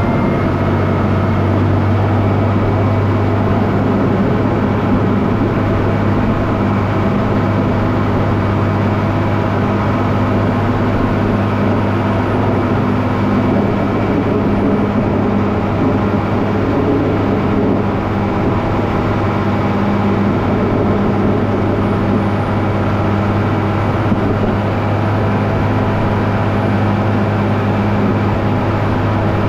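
A vehicle engine running steadily: a constant low drone that holds the same pitch throughout.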